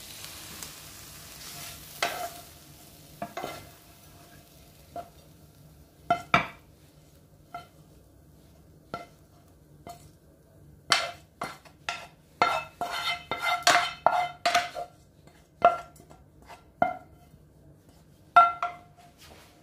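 Fried mushrooms being scraped and tipped from a non-stick frying pan onto a ceramic plate: a series of sharp clinks and knocks with a short ring, sparse at first and thickest past the middle, over a faint sizzle that fades in the first couple of seconds.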